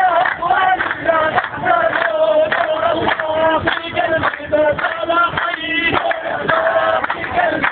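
A group of men singing a song together in unison, with long held notes.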